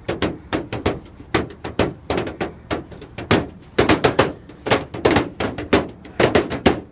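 Hands drumming a fast beat on the metal body of a Chevrolet El Camino: sharp slaps and knocks, about four a second in an uneven, repeating rhythm.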